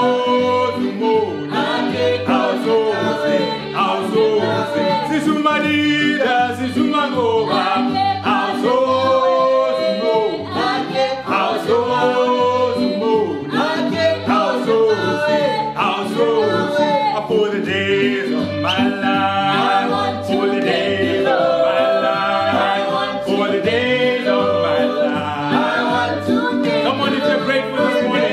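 Small mixed-voice group singing a call-and-response gospel song, with a hand drum keeping a steady beat underneath.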